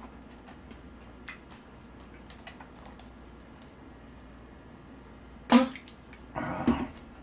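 A person drinking from a plastic drink bottle: faint small clicks and crackles of the bottle being handled, then a short sharp sound as the drink ends and a breathy exhale about a second later.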